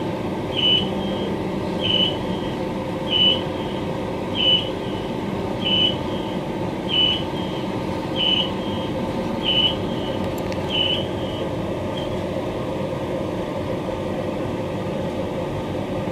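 Short high electronic beeps repeating about every 1.3 seconds inside a Queensland Rail electric multiple unit carriage, nine in all, stopping about 11 seconds in. Under them runs the steady hum of the standing electric train's on-board equipment.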